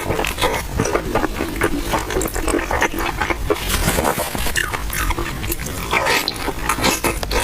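Close-miked chewing and wet lip-smacking while eating a crispy oil-skin bun, a dense run of short smacks and crunches over a low steady hum.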